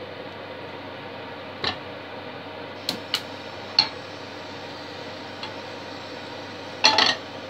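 A frying pan handled on a gas hob: several sharp clicks and knocks of the pan against the metal pan supports, with the loudest clatter near the end, over a steady hiss.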